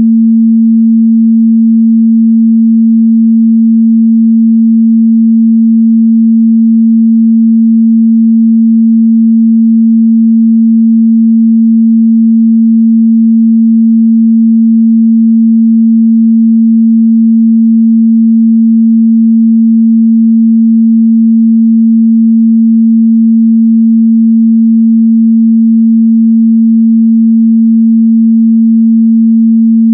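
A steady, loud 226 Hz sine-wave test tone, one unchanging low-mid pitch with no other sound.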